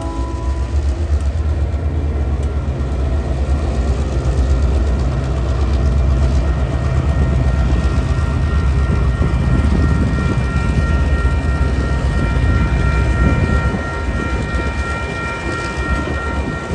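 A diesel-hauled coal train passes close by. The locomotive's engine rumbles deep and loud as the tail of its horn dies away right at the start, then loaded coal hopper wagons roll past with steady wheel-and-rail noise.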